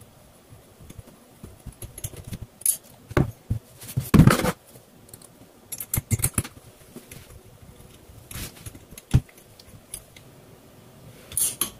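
Scattered small metal clicks and clinks of a hex screwdriver and tiny screws as the heat-sink screws are driven into a Tamiya .18 nitro engine's head, with the engine being handled and turned on the bench. A louder knock comes about four seconds in.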